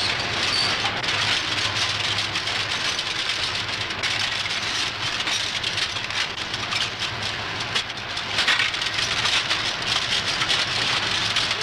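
A room full of Linotype hot-metal typesetting machines running together: a dense, steady clatter of many small metallic clicks over a low hum.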